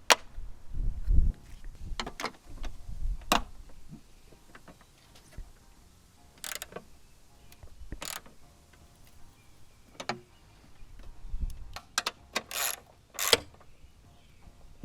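Plastic trim and its fasteners being refitted on a car's front fender area by hand: scattered, irregular clicks and knocks with a few dull low thumps.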